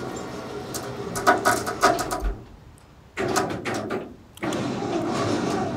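Electric winch on a log-loading trailer running in short pulls, its hum cutting out and starting again abruptly twice, with a cluster of metal clanks from the chain and rigging about a second in.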